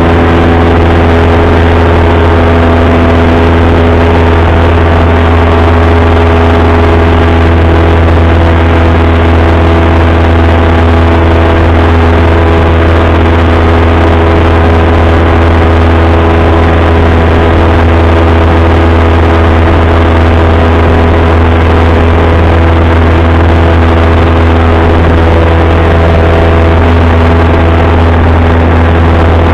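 Single-engine light aircraft's engine and propeller droning steadily, heard inside the cabin at a constant pitch.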